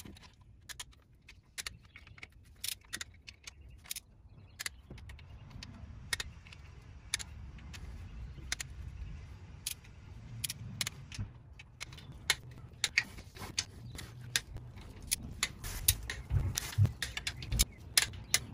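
Ratcheting torque wrench clicking in short, irregular runs as the oil pan bolts of a Porsche Boxster 986 are tightened to 10 N·m (7 ft-lb), working around the pan. A faint low rumble sits underneath from about five seconds in.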